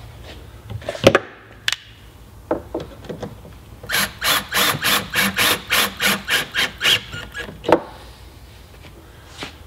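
Cordless drill/driver running a stainless steel screw through the sponson into the jet ski hull in short pulses, about four a second for some three seconds. A few clicks and knocks come before it, and a single sharp click follows near the end.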